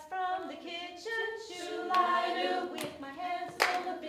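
A group of women singing a simple song together, unaccompanied, with a hand clap near the end.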